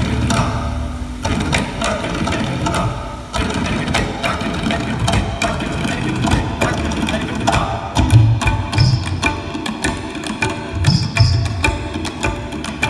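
Show soundtrack music with drums and percussion: sharp strikes throughout, then deep drum beats in short clusters from about eight seconds in.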